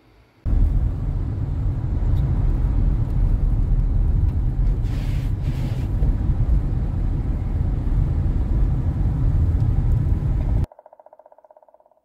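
A car driving on a snow-covered road, heard from inside: a loud, steady low rumble of tyre and road noise that cuts off suddenly near the end. After it, a faint rapid drumming roll from a woodpecker, fading out.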